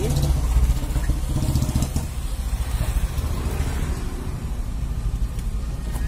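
Steady low rumble of motor vehicle noise.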